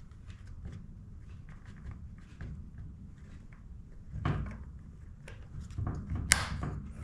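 Small plastic clicks and rubbing as a new rubber purge bulb is pressed and worked into the plastic housing of a Husqvarna 455 Rancher chainsaw, with a thicker bout of handling about four seconds in and one sharp click about six seconds in.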